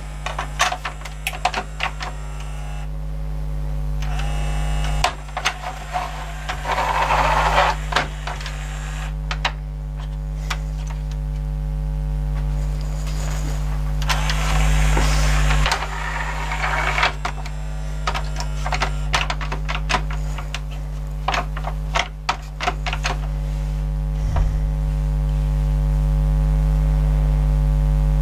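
Kenwood mini hi-fi's CD changer mechanism working as the disc carousel is opened, loaded and closed: many sharp plastic clicks and two spells of motor whirring, about six and fourteen seconds in, over a steady electrical hum. The changer's drive belt is slack, which the repairer suspected from its sound.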